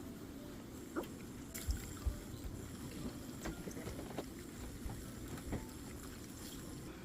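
Raw eggs being beaten in a bowl: faint liquid sloshing with a few light clicks of the utensil against the bowl.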